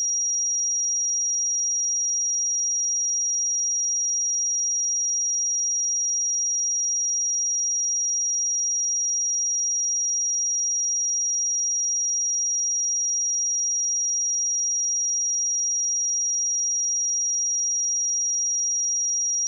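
A steady 5708 Hz sine-wave test tone: one pure high-pitched whistle held at constant pitch and level.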